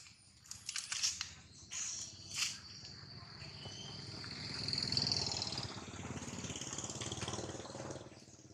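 Outdoor insect buzzing, likely cicadas, that swells to a peak about halfway through and fades near the end. It follows a few short, sharp sounds in the first two seconds.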